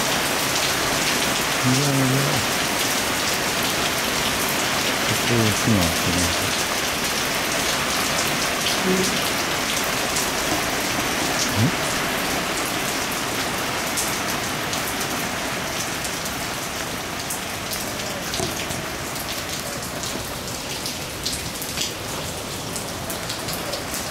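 Heavy thunderstorm rain pouring down as a steady hiss of drops hitting surfaces. It eases a little toward the end.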